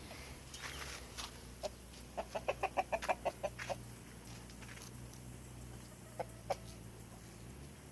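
A bird calling: a quick run of about ten short calls about two seconds in, then two single calls near the end.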